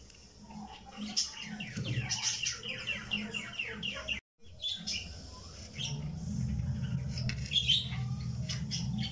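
A bird chirping: a quick run of falling chirps, several a second, lasting a couple of seconds, among light clicks. The sound cuts out for an instant about four seconds in, and a low steady hum follows.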